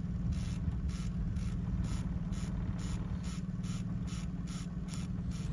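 Boat motor running steadily at trolling speed, with an even mechanical clicking about two and a half times a second over it.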